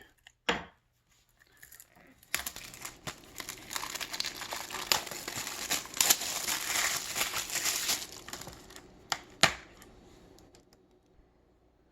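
Plastic packaging of a Blu-ray case crinkling and rustling for several seconds as the case is unwrapped and opened, with a few sharp clicks, the last one about two seconds before the crinkling stops.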